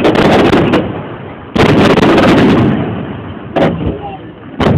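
Fireworks shells bursting one after another: sharp cracks at the start, a big boom about a second and a half in whose noise lasts about a second, then a shorter bang and another burst near the end.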